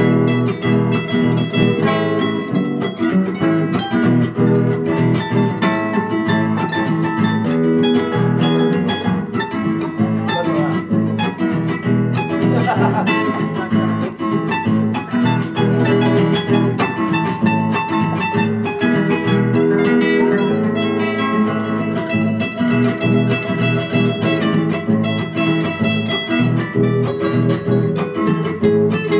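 Instrumental music led by plucked strings, a steady run of quick notes.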